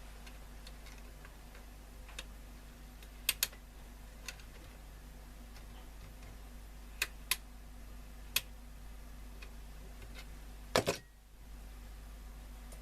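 Scattered sharp clicks and taps of tools and parts being handled at a radio repair bench, over a steady low hum. The loudest is a double click near the end, after which the hum briefly dips.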